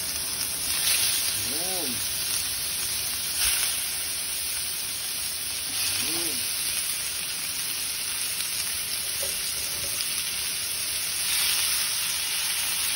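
Chopped pork belly sizzling steadily in a hot non-stick frying pan as it is stirred, the sizzle swelling briefly every few seconds; the pork is being fried to render out its fat.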